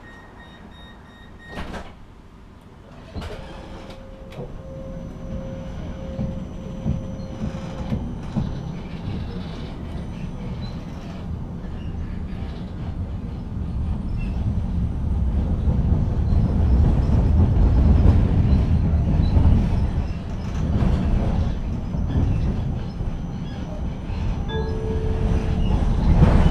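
Inside a tram: a steady beep cuts off with a knock as the sliding doors shut, then the tram pulls away, its rumble of wheels on the rails and running gear growing steadily louder as it gathers speed.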